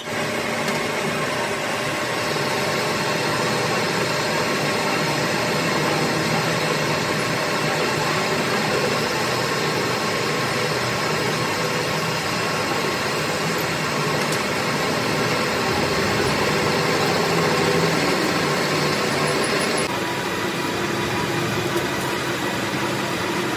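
A machine running steadily, a dense mechanical noise with several steady tones through it; the sound shifts slightly about twenty seconds in.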